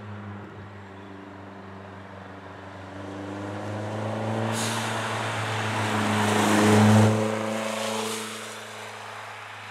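Lancia Delta HF Integrale rally car's turbocharged four-cylinder engine pulling through a bend and passing close by. It grows louder to a peak about seven seconds in, then fades away.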